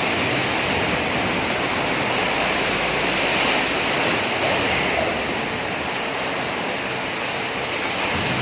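Tropical-storm wind and heavy sea around a boat at anchor: a loud, steady rushing noise that eases slightly about halfway through.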